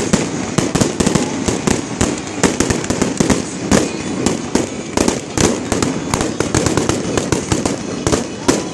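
Fireworks display: shells bursting overhead with crackling effects, a dense, continuous run of rapid, irregular pops and crackles.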